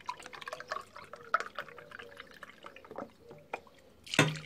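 Milk poured in a stream into a stainless steel pot, with irregular small splashes and drips, and a louder burst near the end.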